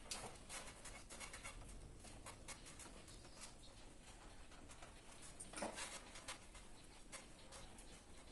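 Faint clicking and scraping of a screwdriver and hands working wires and plastic miniature circuit breakers in a distribution board, with one longer, louder noise about five and a half seconds in.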